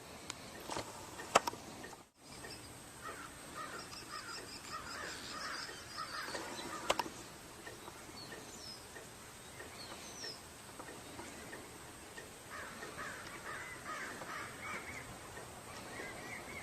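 Birds calling outdoors: bursts of short chirping calls, with a sharp click about a second and a half in and another about seven seconds in.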